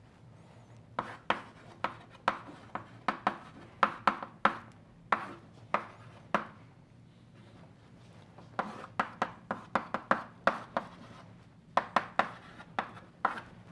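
Chalk writing on a blackboard: a quick run of sharp taps and short scratchy strokes as symbols go onto the board, in two bursts separated by a pause of about two seconds midway.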